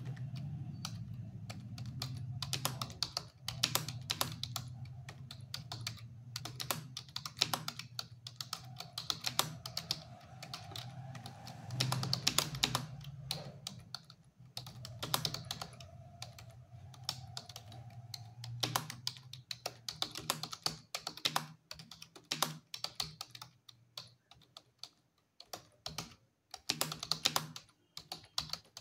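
Continuous fast typing on a computer keyboard: a dense run of key clicks during a timed typing test, breaking into shorter bursts with brief pauses near the end. A low hum sits underneath and fades out about two-thirds of the way through.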